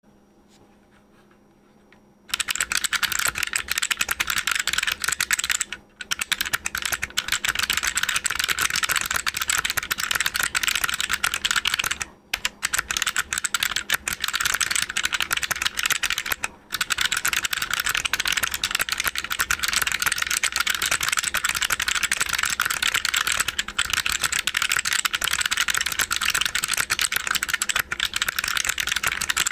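Fast typing on a mechanical keyboard with clicky white Alps-clone switches in a steel plate, under DCS Alps keycaps: a dense, loud clatter of sharp clicks that starts about two seconds in and breaks off briefly three times.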